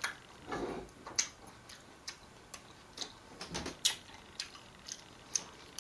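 Chewing watermelon: a run of irregular small clicks and smacks from the mouth.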